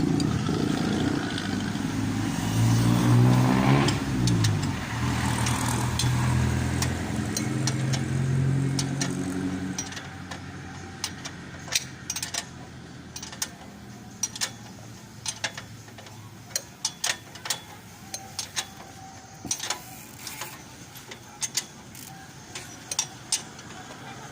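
Freshly top-overhauled Honda TMX125 Alpha single-cylinder four-stroke engine running, revved briefly about three seconds in, then going quiet about ten seconds in. Sharp metallic clicks follow.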